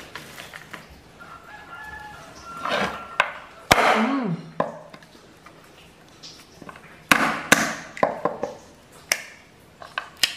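Sharp cracks and knocks of hard keluak (kluwek) nut shells being broken open on a wooden board. The loudest crack comes near four seconds in and a cluster follows in the second half. A rooster crows faintly about a second in.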